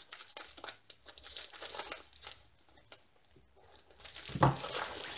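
Plastic bubble mailer crinkling and rustling as it is handled and opened, in short scattered bursts that get busier near the end.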